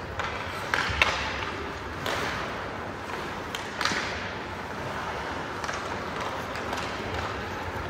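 Ice hockey play: several sharp clacks of sticks and puck, the loudest about a second in, over a steady hiss of skates scraping the ice.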